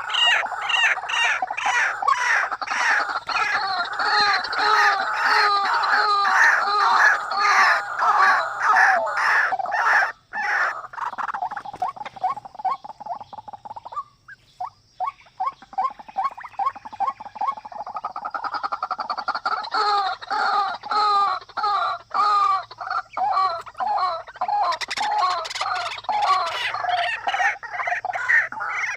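Birds calling in a dense, continuous chatter of rapid chirps, with a short break about ten seconds in and a thinner patch a few seconds later.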